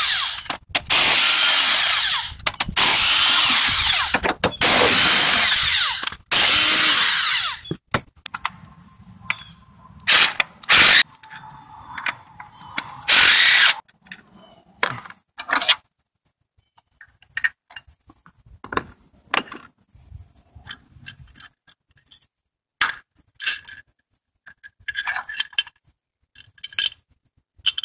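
Cordless Milwaukee M18 impact wrench loosening engine motor-mount bolts: four long bursts in the first seven seconds or so, then three short bursts around ten to fourteen seconds in. After that come light clicks and clinks as the bolts and metal bracket are handled by hand.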